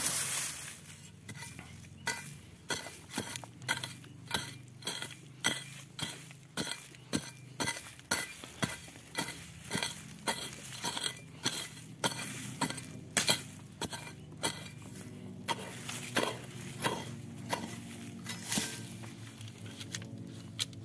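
Hand digging tool chopping and scraping into stony soil, about two sharp strikes a second with clinks, while digging out a metal-detector target. A low steady hum runs underneath.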